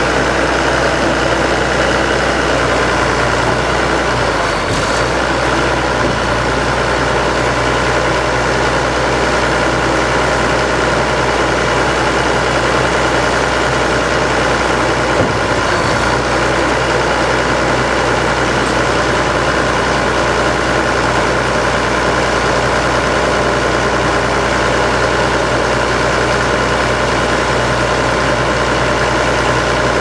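Engine of an Al-Jon Model 400 car logger/baler running steadily at a constant speed, a loud unbroken drone.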